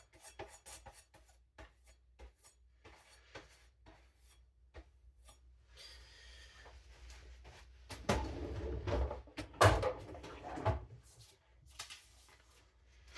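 Steel knife blade being stropped on denim and handled at a bench: light rubbing strokes and small clicks, getting louder with rubbing and a few low knocks from about eight to eleven seconds in.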